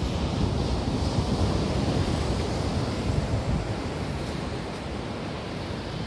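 Ocean surf washing onto the beach, with wind buffeting the microphone as a fluttering rumble.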